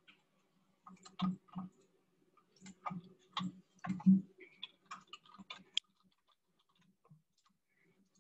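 Computer mouse clicks, then a quick run of computer keyboard typing, stopping about six seconds in.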